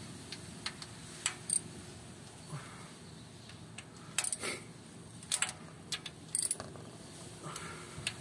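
Hand tools clinking against metal engine parts: scattered sharp metallic clicks and clinks at an irregular pace, bunched into small clusters about four, five and six and a half seconds in.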